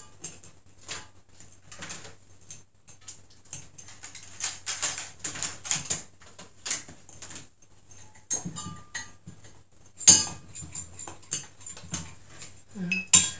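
Small metal swing-top bottle cap parts (wire bails, nuts and bolts) clicking and clinking against each other and a plastic tray as they are handled and screwed together. Many short, irregular clicks, the loudest about ten seconds in, over a faint steady low hum.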